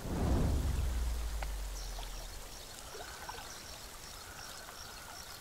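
Rushing stream water, with a deep boom at the very start that fades out over about two seconds.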